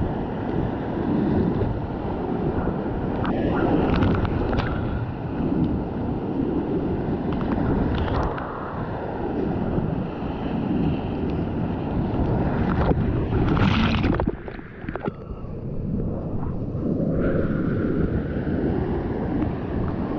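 Rushing whitewater with wind buffeting the microphone, as from a camera on a kayak running a creek. Short splashes break through now and then, the loudest about thirteen seconds in, followed by a brief dip in level.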